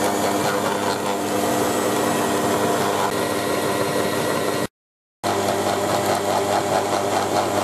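Stand mixer's motor running steadily, its dough hooks kneading panettone dough in a stainless steel bowl. The sound drops out completely for about half a second past the middle, then carries on.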